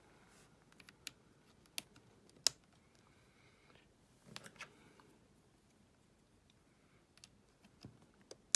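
Scattered sharp clicks and light handling taps as small USB-C tester boards are pushed into a laptop's USB-C ports. The loudest clicks come about two and a half seconds in and at the very end.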